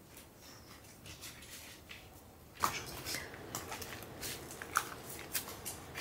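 Footsteps over loose rocks, with irregular crunches and clicks of stones shifting underfoot. They start about two and a half seconds in, after a quiet stretch.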